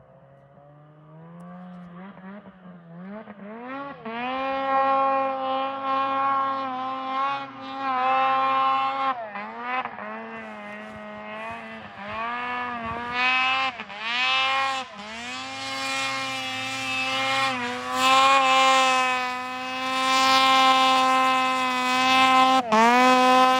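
Two-stroke engine of a 2013 Arctic Cat M800 mountain snowmobile, revved up and down again and again as the sled works down a steep slope. It starts faint and grows louder as the sled comes closer, loudest near the end.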